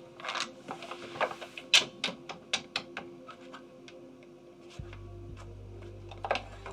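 Rapid, irregular sharp clicks, dense at first and then thinning out, typical of betting chips being placed on an online live-casino baccarat table during betting time. A low steady hum comes in near the end.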